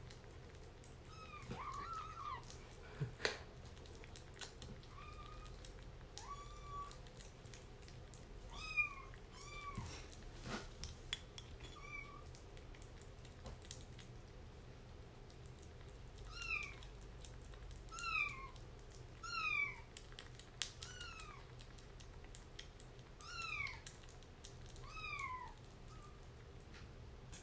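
Kitten mewing again and again, a dozen or so short, high mews that fall in pitch, coming more often in the second half. A few sharp clicks fall between them.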